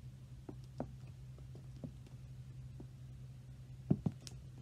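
Stiletto heels of Christian Louboutin Iriza pumps tapping on a hard floor as she steps: a few scattered faint clicks, with two louder heel strikes near the end. A steady low hum runs underneath.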